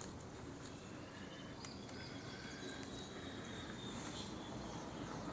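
Faint outdoor ambience with distant birds giving thin, high whistled chirps over a low background rumble, plus a couple of soft clicks.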